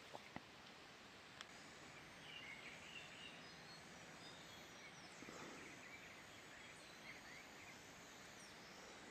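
Near silence: faint forest ambience over a low hiss, with scattered short high chirps and three soft clicks in the first second and a half.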